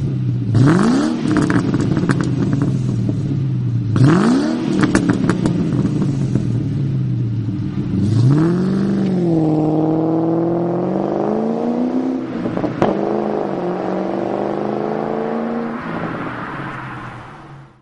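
A 2001 Ford Mustang Bullitt's V8 running through a Magnaflow exhaust. It idles and is blipped three times, each rev rising and falling quickly. It then accelerates away, climbing in pitch with a drop at a gear change about twelve and a half seconds in, and fades as it drives off.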